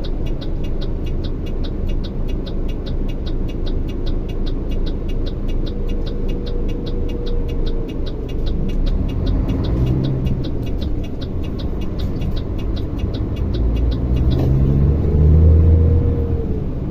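Heavy diesel truck engine running steadily, with a fast, regular ticking over the low rumble. Near the end an engine note rises and gets louder.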